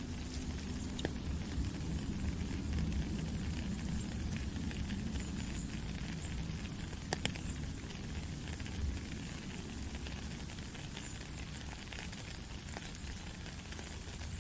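Steady rain falling in a forest, a constant hiss and low rumble with scattered small drip ticks and one sharper tick about seven seconds in.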